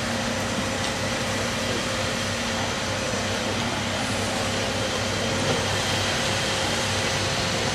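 Steady running of an idling vehicle engine, a constant low hum under an even noisy background.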